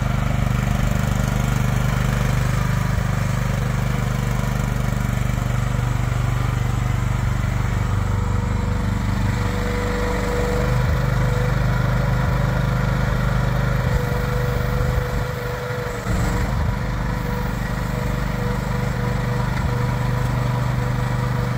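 Miva VA13C mini crawler excavator's small engine running steadily under load while the boom, arm and bucket are worked, with a thin whine that comes and goes and a brief dip in the engine sound about three-quarters of the way through.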